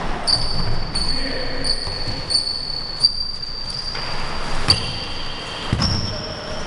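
Futsal ball being kicked and played on a hardwood gym floor, with sharp knocks about three and four and a half seconds in and a dull thud near the end. A thin high-pitched whine runs under most of it.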